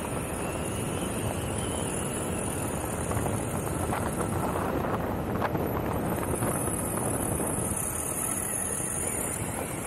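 Steady wind rush over the camera microphone mixed with the rolling noise of an electric skateboard's urethane-sleeved hub-motor wheels on asphalt, with a couple of faint clicks in the middle.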